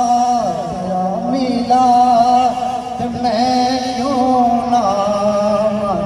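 Male voice singing a devotional naat in long, held notes that glide up and down in pitch.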